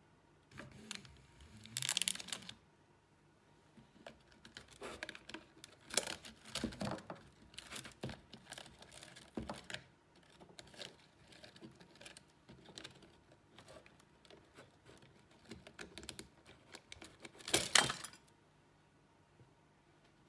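Hand handling of a window regulator's steel cable and plastic cable pulley as they are worked out of the regulator motor housing: irregular clicks, scrapes and rattles of wire on plastic, with louder rustling bursts about two seconds in and near the end.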